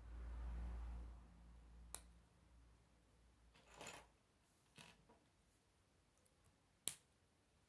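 Plastic K'nex pieces being handled and snapped together: a few short, sharp clicks spread over several seconds, the loudest near the end. A low rumble is heard in the first second.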